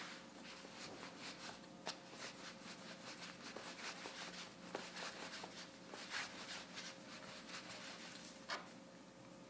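Hands rolling pretzel dough into a long rope on a wooden board: faint, soft rubbing with a few light taps against the board.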